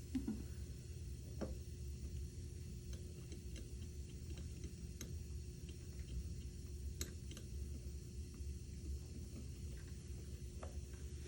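A few scattered light clicks and taps over a steady low hum and a faint steady tone.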